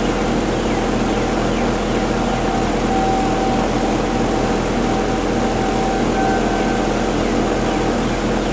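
Distant outdoor warning sirens sounding a steady tone that swells and fades every few seconds, under a loud, steady rushing noise.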